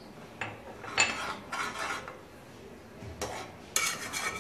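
A metal spoon clinking and scraping against a metal cooking pot while stirring simmering tamarind chutney. The sharpest clink comes about a second in, and denser scraping strokes come near the end.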